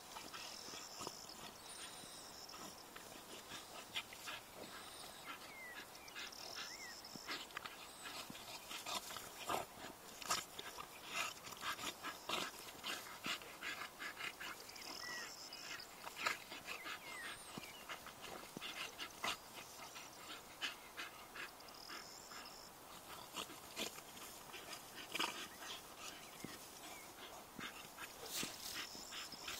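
Dogs romping and play-wrestling in tall grass: irregular rustling and scuffling with occasional dog noises, and brief high chirps every few seconds.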